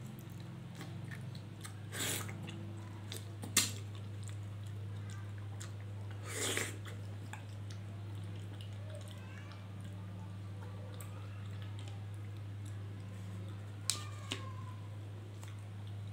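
Small kitchen knife paring and slicing a ripe papaya by hand: a few soft cuts and scrapes through the skin and flesh, with a couple of sharp clicks near the end, over a steady low hum.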